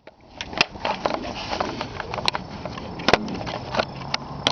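Camera handling noise: scraping and a series of sharp knocks as the camera is moved about and set down on asphalt pavement.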